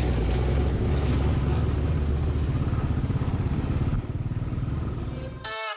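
Royal Enfield single-cylinder motorcycle engine running under way, a steady low pulsing beat. It softens a little about four seconds in, and music comes in just before the end.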